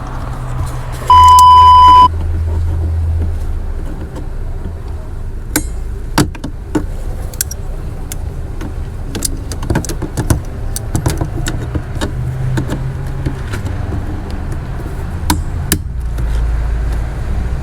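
A loud, steady electronic beep lasting about a second, then scattered sharp clicks and knocks over a low hum.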